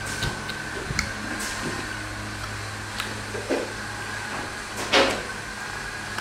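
Steady low room hum with a faint high tone over it, broken by a few soft clicks and one brief, louder rustle about five seconds in.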